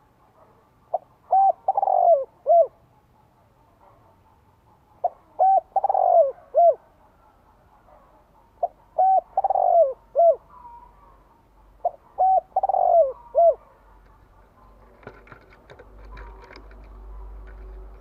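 Caged spotted dove singing its cooing song, the call used as a decoy to draw wild doves: four phrases about three and a half seconds apart, each a couple of short coos, a longer rolling coo and a short closing coo. Faint clicks and rustling follow near the end.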